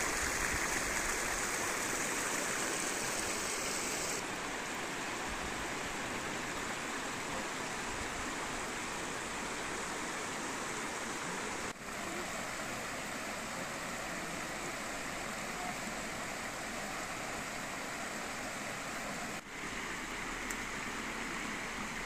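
Steady rushing of flowing and falling water from a waterfall and its stream. The hiss loses some of its top about four seconds in and dips briefly twice later, where the sound changes from one shot to the next.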